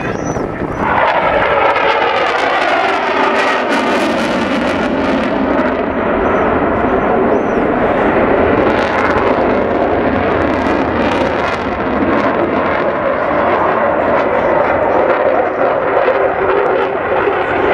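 Eurofighter Typhoon's twin EJ200 jet engines: a loud, continuous jet roar that swells sharply about a second in and then holds, with a slow sweeping, phasing quality as the aircraft moves through the sky.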